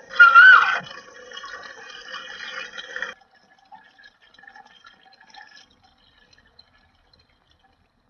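Film soundtrack: a short sliding note trails off from the flute music, then water dripping and trickling that cuts off abruptly about three seconds in. A few faint, scattered drips follow.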